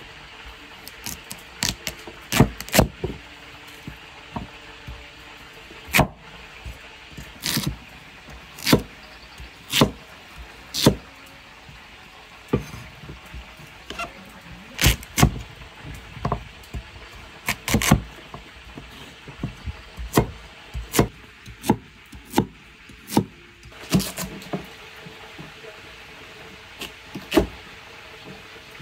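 Cleaver chopping a peeled sweet potato on a wooden chopping block: sharp single knocks of the blade through the tuber onto the wood, irregularly spaced about a second apart, with a pause of a few seconds near the end.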